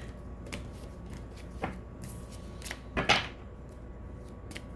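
Tarot cards being handled: a few short rustles and taps, the loudest a brief rustling slide about three seconds in.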